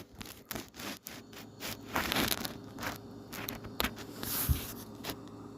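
Scattered light clicks, knocks and rustles of handling, with no steady sound under them.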